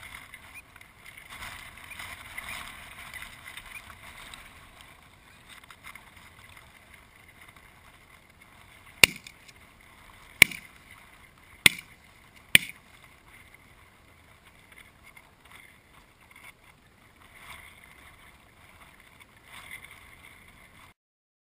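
Four shotgun shots in quick succession, about a second apart, starting about nine seconds in, over a faint steady outdoor background.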